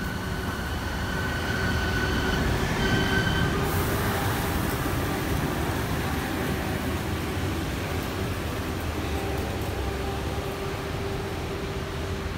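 Steady low rumble of heavy traffic or a passing train, with a high, held squeal for the first three seconds or so.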